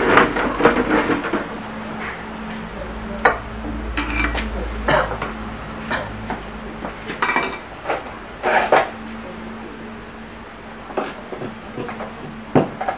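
Metal parts and tools clinking and clanking as they are handled and set down, a series of irregular sharp knocks, some with a short metallic ring.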